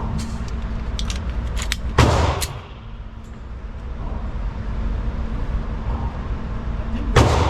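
Two loud gunshots about five seconds apart, each with a short echoing tail, over a steady low hum. A few lighter clicks come before the first shot.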